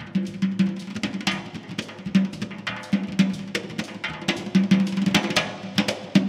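Azerbaijani hand drums, the rope-tensioned naghara barrel drum among them, playing a fast, driving percussion passage: dense quick strokes with a recurring deeper drum tone as an accent.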